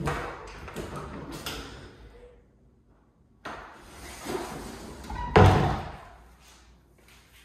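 Closet doors being opened and shut. Rattling and sliding noise starts suddenly at the start and again about halfway through, and a loud bang comes about two-thirds of the way in as a door knocks shut or against its stop.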